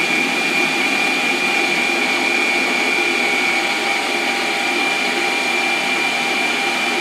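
Electric food processor motor running steadily, blending a liquid chocolate chia pudding mixture. A steady high whine rides over the motor noise.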